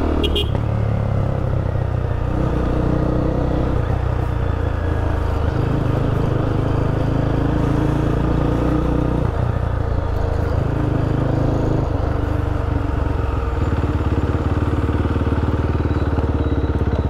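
Motorcycle engine running under way as the bike is ridden, its note stepping up and down several times as the revs change.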